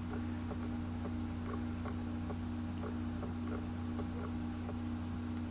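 Faint light ticks and clicks over a steady low electrical hum.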